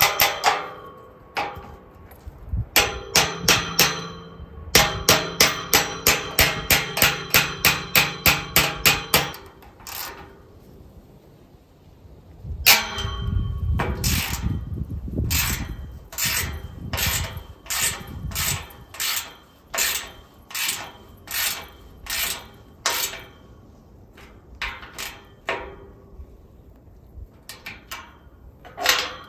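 Steel through-post gate hinge being tightened with a wrench: runs of sharp metallic clicks with ringing from the steel gate. The clicks come about three a second for a few seconds, then more slowly, about one a second.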